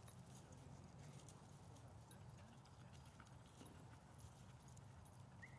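Near silence: faint outdoor ambience with a low steady hum and a few soft scattered ticks.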